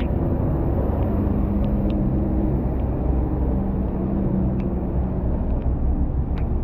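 Steady low rumble of road traffic, with an engine hum running underneath for a few seconds.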